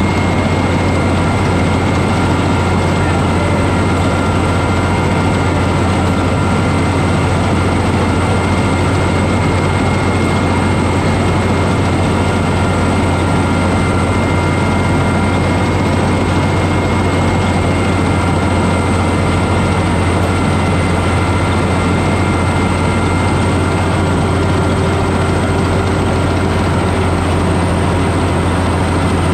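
A 102 PRO rice combine harvester running steadily while cutting lodged, storm-flattened rice: a constant loud low engine drone under the dense rattle of the machine, with a thin steady high whine on top.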